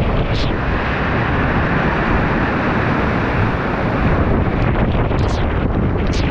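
Waterfall pouring, a loud steady rush of water. A few short, high, falling chirps cut through it near the start and again near the end.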